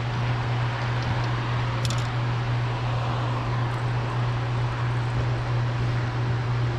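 Steady low hum over an even rushing-water noise from a hydroelectric dam with one turbine running. A single short click comes about two seconds in.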